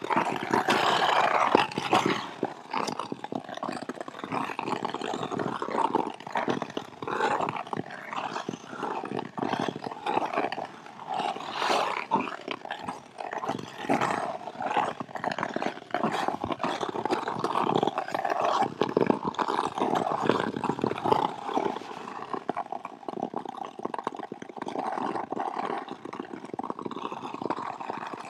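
Ice skate blades scraping and gliding over rough natural ice on a frozen swamp, in a run of uneven strokes.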